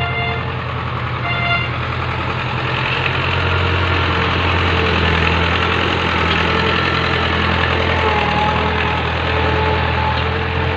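Tractor engine running steadily while pulling a plough, a continuous low drone whose pitch lifts slightly a few seconds in.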